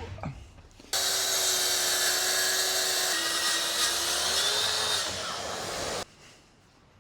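A high-pitched power tool running under load. Its steady whine drops slightly in pitch midway, and the sound starts and stops abruptly.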